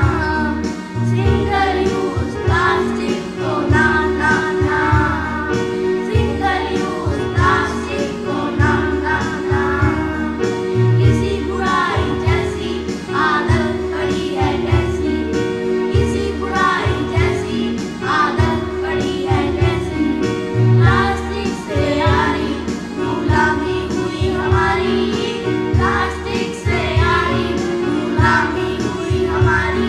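A group of children singing a Hindi song in chorus, with instrumental accompaniment and a pulsing bass line.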